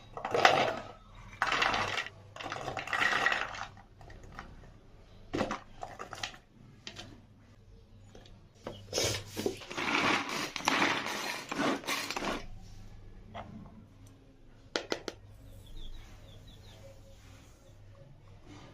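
Kitchen utensil sounds: a spoon clinking and scraping against a bowl or dishes in several short spells of stirring, with a longer spell near the middle and a few separate sharp clicks.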